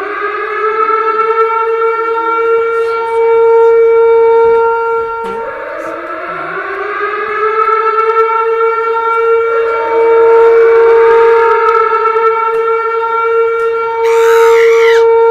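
Civil-defense siren winding up in pitch and then holding a steady tone, three times over, as an added sound effect.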